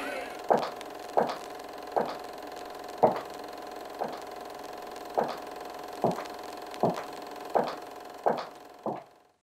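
A series of about a dozen sharp knocks, roughly one a second, coming a little closer together and growing fainter toward the end, over a faint steady ringing tone.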